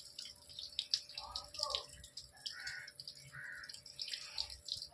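Water dripping and splashing in quick, light patters.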